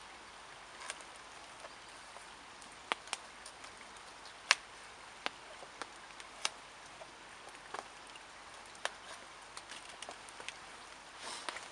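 Campfire of birch logs crackling, with irregular sharp pops spaced a second or so apart; a brief rustle near the end.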